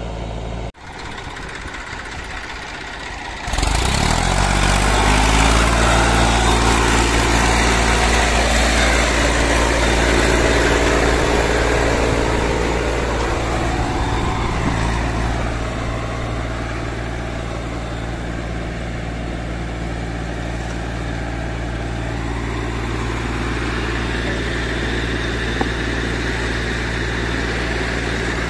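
Massey Ferguson 1035 tractor's three-cylinder diesel engine running steadily as it drives a brick-making machine's clay mixer. It comes up to speed a few seconds in and then holds a steady note.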